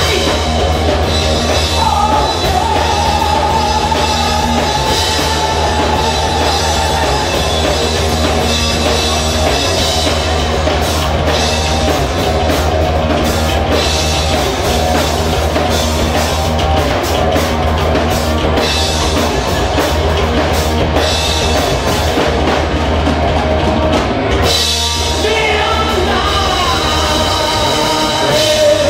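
A live hard rock band playing loud: electric guitars, bass guitar and a drum kit, with a singer on a microphone. The bass and drums drop out for a moment about 25 seconds in.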